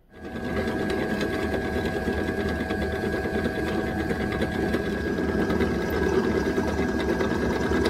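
Pillar drill running steadily, its motor and spindle humming evenly as a twist drill bores into silicon-bronze filler on a cast-iron Harley-Davidson Ironhead cylinder head.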